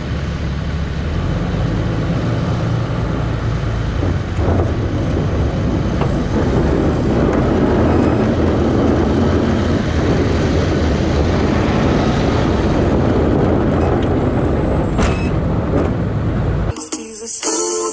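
Plow truck's Cummins inline-six turbo diesel running steadily as it drives with the V-plow down, with a rush of noise swelling in the middle. Music cuts in abruptly near the end.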